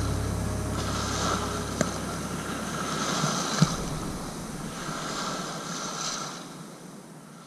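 Small waves washing up the shore right over a camera at the water's edge, swelling about every two seconds, with two sharp knocks about two and three and a half seconds in; the sound fades out near the end.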